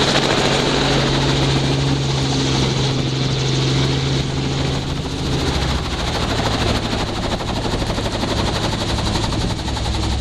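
Robinson R44 helicopter's rotor chopping and six-cylinder piston engine running, heard from inside the cabin as it sets down. About five seconds in, the steady hum drops in pitch and eases slightly as the helicopter settles onto its skids.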